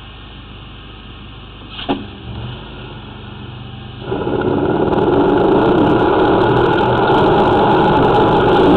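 A high-pressure drain jetter comes on about four seconds in: a sudden, loud, steady rush of the pump and the water jet spraying from the nozzle inside the sewer pipe. A single short knock is heard earlier, about two seconds in.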